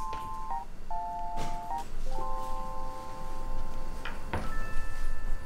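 A short electronic tune of pure beeping tones: paired notes stepping down, then a held chord about two seconds in, then a higher held pair near the end, with a few soft knocks underneath.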